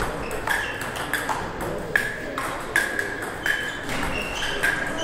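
Celluloid-type table tennis ball clicking against the table and rackets in play, about two to three hits a second, the table bounces ringing briefly.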